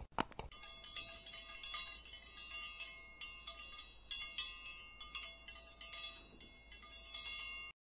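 A couple of quick clicks, then a dense run of high, tinkling chime tones struck over and over, like a wind-chime sound effect. It cuts off suddenly just before the end.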